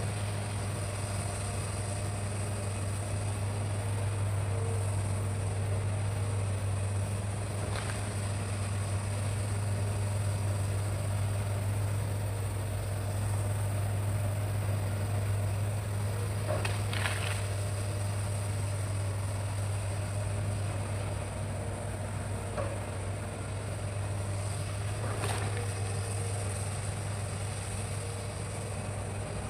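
Hitachi excavator's diesel engine running at a steady, unchanging drone, with three brief sharp knocks spread through it.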